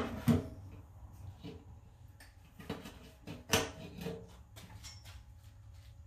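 Scattered clicks and knocks as the generator's fuel tank cap is twisted and taken off, with the loudest knock about three and a half seconds in, over a low steady hum.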